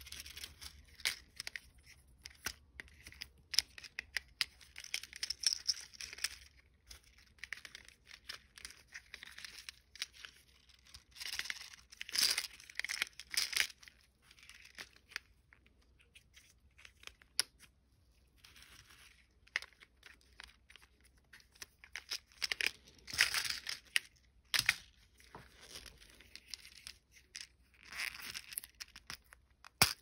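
Plastic wrapping on monkey-shaped lollipop toys being crinkled and torn open by hand, in several bursts of rustling with sharp clicks of handled plastic between them; the loudest bursts come a little before halfway and about three quarters in.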